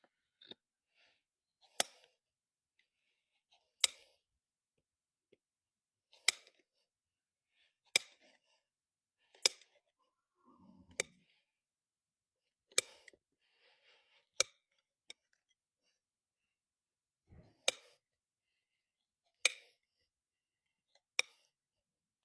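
Hoof nippers cutting through an overgrown draft horse's hoof wall, about ten sharp snaps at intervals of one to two seconds.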